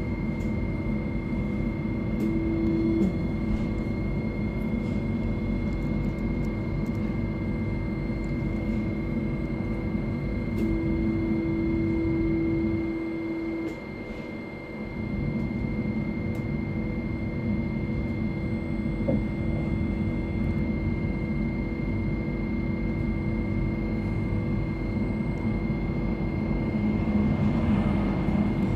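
Steady hum and whir inside a tram standing still. A plain steady tone sounds briefly about two seconds in, then again for about three seconds near the middle. The low noise drops away for a moment just after it.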